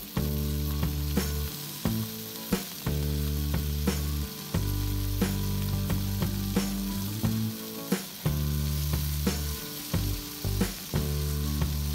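Mole crickets frying in hot oil in a pan: a steady sizzle, with the clicks and scrapes of a spatula stirring them.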